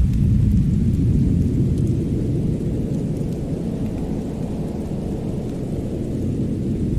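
Deep, steady rumbling noise of a winter fireside ambience that eases slightly midway, with faint scattered crackles above it.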